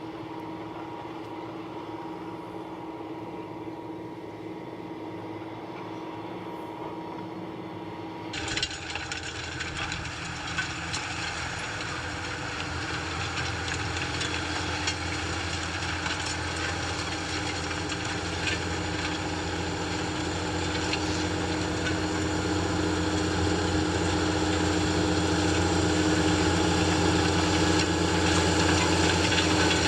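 Tractor engine running steadily under load while pulling Magnum DV 980M heavy offset disc harrows, with scattered clicks and clanks from the discs working hard, stony ground. About eight seconds in the sound changes abruptly to louder and fuller, then slowly grows louder toward the end.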